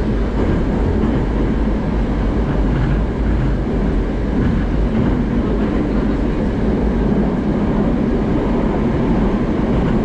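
Moscow Metro 81-765/766/767 'Moskva' train running through a tunnel, heard inside the passenger car: a steady, heavy rumble of wheels and running gear.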